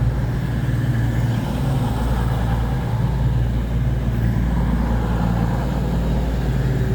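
A passenger train standing at the platform, its engines idling with a steady low drone.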